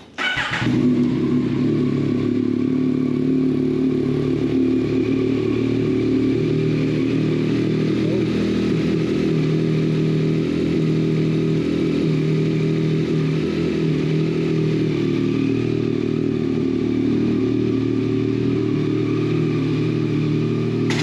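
Cold start of a 2021 Yamaha MT-09's 890 cc three-cylinder engine through an Akrapovic race exhaust: it fires up straight away and settles into a steady idle.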